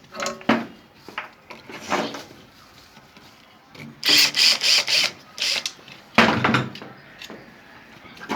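Hand tools clattering and scraping on metal as the screws holding a washing machine's spin-dryer motor are worked loose, in several short bursts of quick strokes. The longest burst comes about halfway through.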